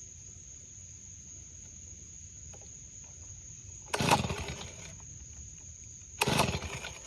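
Two-stroke engine of a Stihl BG leaf blower being pull-started twice. Each yank gives about a second of cranking that does not catch: the blower fails to start.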